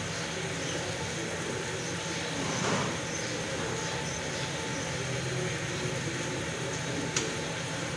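A steady mechanical drone of running machinery with a low hum, swelling briefly about three seconds in, and a single sharp click near the end.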